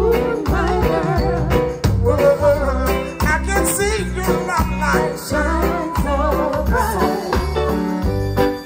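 Live reggae band playing with a man singing over it, a heavy bass line pulsing on a steady beat.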